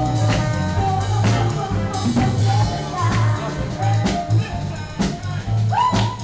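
Live band playing with a steady beat: drum kit, electric bass, saxophone and a woman singing.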